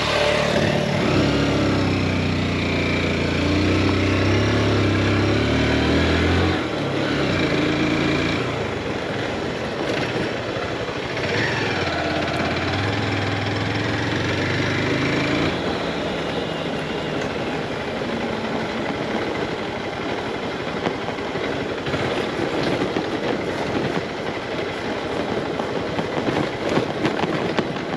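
Motorcycle engine running with revs rising and falling for the first half, then mostly steady rushing wind and road noise.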